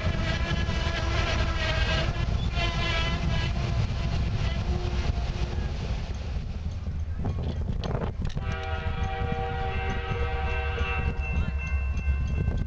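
Passenger train cars rumbling steadily along the rails, with a pulsing pitched tone over the first few seconds. About eight seconds in, a locomotive horn sounds for about two and a half seconds as a chord of steady notes.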